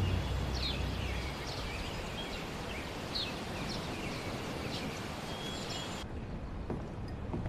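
Birds chirping, short falling chirps repeated over a steady outdoor hiss, while a low rumble fades out in the first second or so. About six seconds in, the chirping cuts off abruptly to a quieter background.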